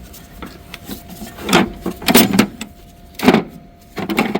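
Hand tools being handled in a tool cart: several loud knocks and clanks of tools being moved and set down, over a faint steady hum.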